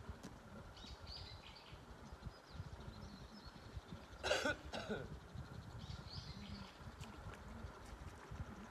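A person coughs once, sharply, about halfway through, over a low steady outdoor background with a few faint bird chirps before and after.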